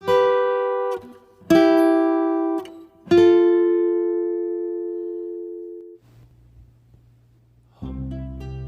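Intro music: three plucked-string chords, each ringing out and fading, the last held for about three seconds. After a short lull, a fuller tune with a bass line starts near the end.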